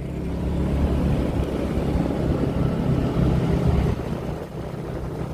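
Motorbike engine running during a ride, with wind and road noise on the microphone; it eases off slightly about four seconds in.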